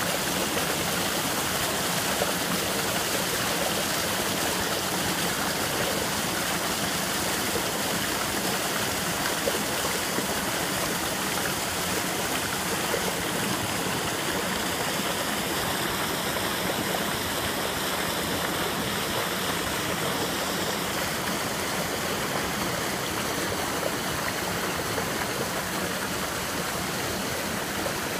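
Mountain creek water rushing steadily over boulders and down a small rocky cascade.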